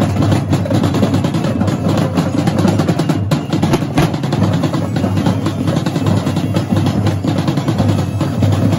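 Two drum corps drumlines playing at once: dozens of marching drums struck with sticks in a fast, dense, unbroken rhythm.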